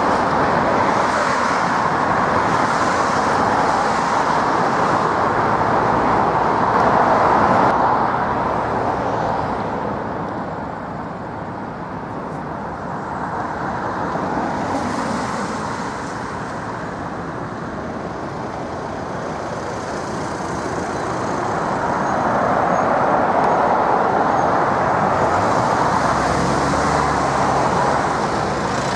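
Jet airliner engines at takeoff power, a loud steady roar that eases off in the middle and swells again near the end as a twin-engine widebody jet lifts off and climbs away.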